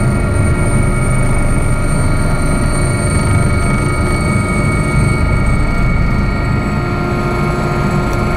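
Helicopter cabin noise heard from inside while taxiing after landing: a steady rotor and turbine drone with a high turbine whine, which weakens and drops a little in pitch about two-thirds of the way through.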